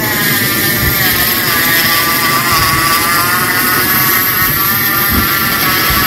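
NeuMaster 3.6-volt cordless rotary tool with an end mill, cutting away the metal inside an HY H17 spindle connector: a steady high whine over a grinding hiss, its pitch wavering a little as the bit bites.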